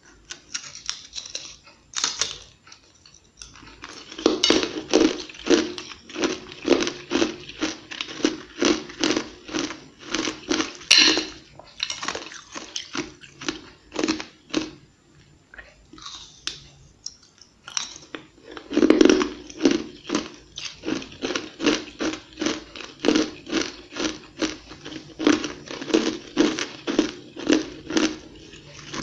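Close-miked chewing of flaky, floss-textured ice, crunching rhythmically about twice a second. The chewing comes in two long runs with a short lull between them, each run starting with a fresh mouthful.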